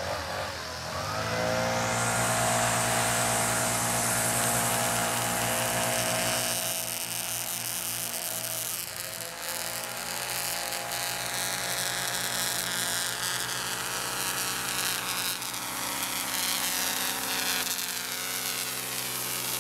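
Backpack leaf blower engine running at high speed. It revs up about a second in, eases off around six seconds in, and picks back up by about nine seconds.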